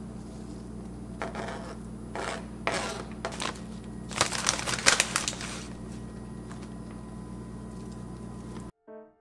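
Plastic salad bag crinkling in several short bursts as it is handled, loudest about four to five and a half seconds in, over a steady low hum. Piano music cuts in near the end.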